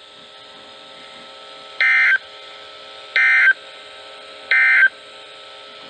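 NOAA Weather Radio end-of-message (EOM) code played through a weather radio: three short, harsh digital data bursts about 1.3 seconds apart, marking the end of the severe thunderstorm warning. A faint steady radio hiss and hum fills the gaps.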